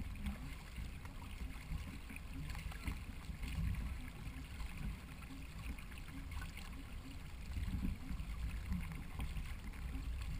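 Water splashing and sloshing along the hull of a racing canoe under way, with a steady low rumble, picked up by a camera mounted on the canoe.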